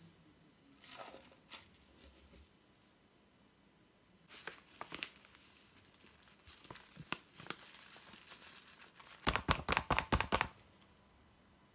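Paper flour bag crinkling and rustling as flour is tipped out of it into a plastic measuring jug, in scattered crackles, with a louder run of rapid crinkles near the end.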